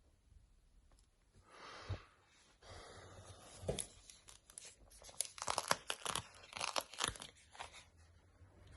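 Crinkly rustling and scraping with scattered sharp clicks, from the repaired phone being picked up and handled to test it.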